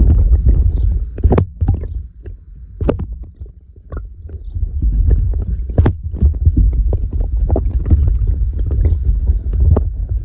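Wind buffeting the microphone in a heavy low rumble outdoors, with frequent sharp crackles and pops over it. The rumble eases for a couple of seconds, then picks up again.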